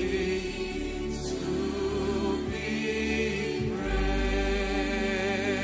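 Slow worship music: sustained low chords with voices singing long, wavering held notes.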